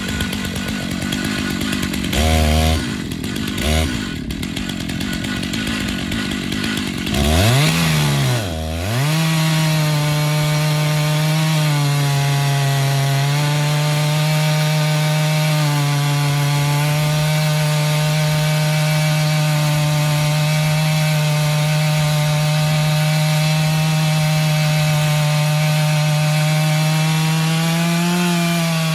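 Chainsaw on a chainsaw mill, ripping a slab lengthwise through a log. It runs low for the first few seconds with two brief revs, then revs up at about seven seconds. From there it holds a steady full-throttle note as it cuts.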